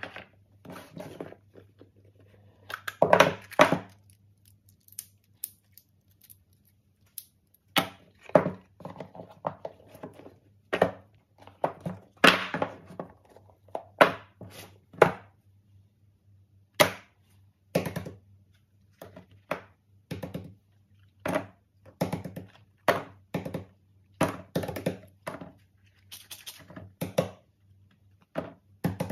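Cardboard smartphone boxes and silicone pop-it fidget toys being handled and set down on a tabletop: irregular thunks, taps and short sliding rustles.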